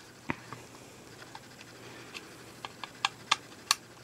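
Small screwdriver clicking and tapping against the screw terminals and plastic case of the spinning wheel's motor housing as the terminals are loosened: scattered sharp clicks, one a moment in and a quicker cluster of four or five in the second half.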